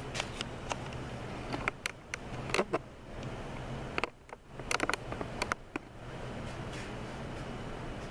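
Knocks, clicks and clunks of a bare aluminium automatic transmission case being shifted and turned on a workbench, in two short clusters, over a steady low hum.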